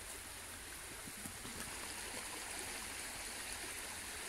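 The Wellow Brook flowing steadily, a constant even rush of running water.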